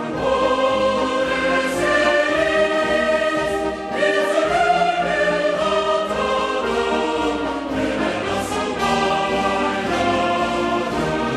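Background choral music: a choir holding long sustained chords, with a change of chord about four seconds in.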